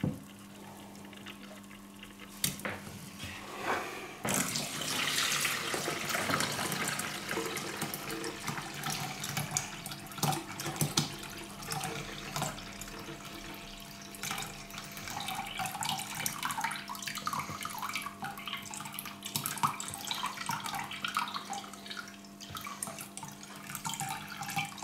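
Water poured off a bowl of boiled chickpeas into a steel pot in a stainless-steel sink, splashing steadily from about four seconds in, with small clicks as a hand holds back the wet chickpeas. A faint steady hum runs underneath.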